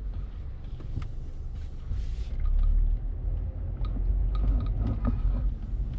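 Low rumble of a Mazda 6 being driven, heard from inside the cabin: engine and road noise that swells about two seconds in, with a few faint ticks and rattles.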